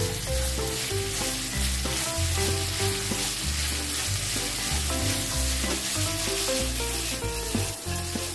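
Pork belly, green pepper and onion sizzling in a hot oiled frying pan as they are stir-fried with chopsticks, with a steady hiss. A light background tune with a bass line plays under it.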